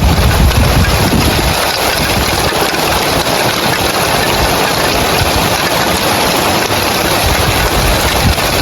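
Heavy rain falling on roof tiles: a loud, steady, dense patter, with a low rumble underneath for about the first second and a half and again near the end.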